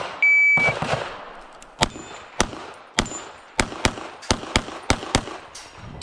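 A shot timer beeps once in a single half-second tone, then a pistol fires about ten shots. The first shots come about 0.6 s apart and the rest come quicker, roughly four a second.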